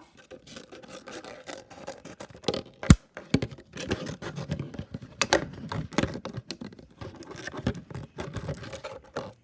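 Scissors cutting a small piece from a thin plastic water bottle: irregular snips with crackling and crinkling of the plastic, and one sharp snap about three seconds in, the loudest sound.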